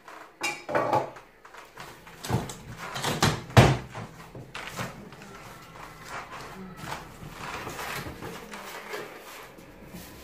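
Large cardboard TV carton being shifted and its top flaps pulled open: a run of knocks and bumps of cardboard, the loudest about three and a half seconds in, followed by quieter rustling and scraping of cardboard against polystyrene packing.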